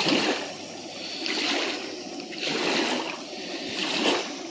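Breaded walleye fillets frying in hot oil in a pan: a steady sizzle that swells and eases about once a second.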